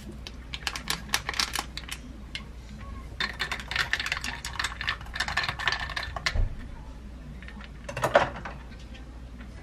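Ice cubes clinking and rattling in a tall glass of water as a powdered drink is stirred in with a straw: scattered clicks at first, a dense run of rattling in the middle, and one louder clink near the end.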